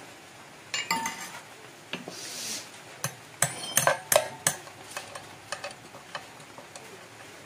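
Metal tools and motorcycle parts clinking and knocking as they are handled: a string of sharp clinks, some of them ringing, loudest in a quick cluster around the middle, then thinning to light ticks.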